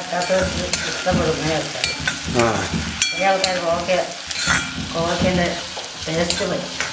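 A steel ladle stirring and scraping sliced ivy gourd frying in coconut oil in a black wok, with sizzling, repeated clinks of the ladle on the pan, and short squealing scrapes of metal on metal.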